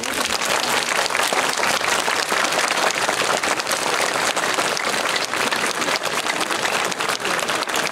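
Audience applauding, many people clapping together in a dense, steady patter.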